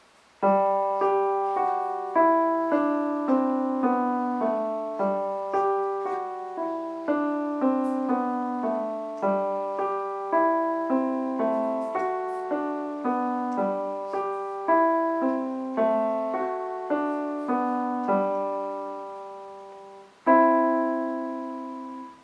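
Piano playing a simple beginner piece in which F is played as F sharp: a stream of single notes over a held low note. A chord struck near the end rings on.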